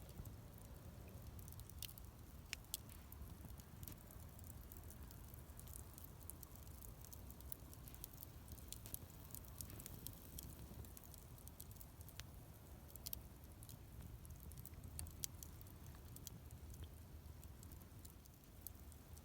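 Wood campfire burning quietly, with scattered sharp crackles and pops over a low steady rumble.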